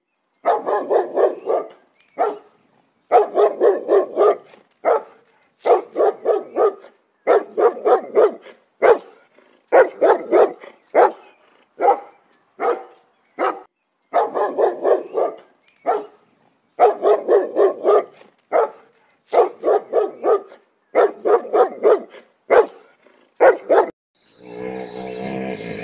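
A dog barking in quick runs of several sharp barks, with short pauses between runs. Near the end a different, rougher continuous sound takes over.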